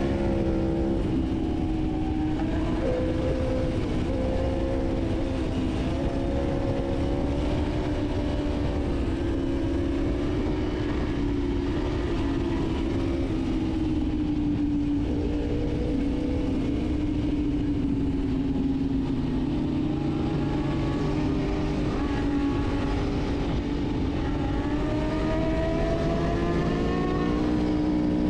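Sport motorcycle engine running steadily at road speed, its note rising and falling with the throttle and climbing near the end, over a constant rush of wind noise.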